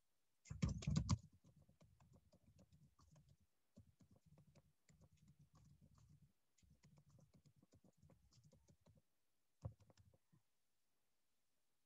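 Faint typing on a computer keyboard: a run of quick keystrokes with a louder flurry about half a second in and a single sharper click near the end.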